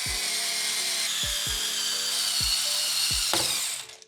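Electric screwdriver running with a steady high whine for nearly four seconds, its pitch dropping just before it stops near the end, over background music with a steady beat.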